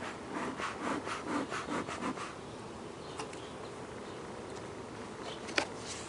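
Honey bees humming steadily over the open top bars of a hive. Rapid rustling and rubbing fill the first two seconds, then a single sharp knock comes near the end as the wooden inner cover is lowered onto the hive.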